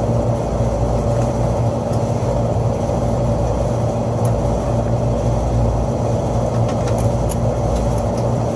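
Steady machinery hum of rooftop HVAC equipment running, a low rumble with a constant pitched drone, and a few light clicks near the end.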